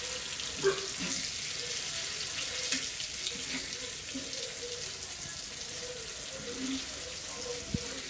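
Vanjaram (seer fish) slices sizzling steadily as they shallow-fry in oil on a tawa, with a few light scrapes of a steel spatula as pieces are lifted and turned.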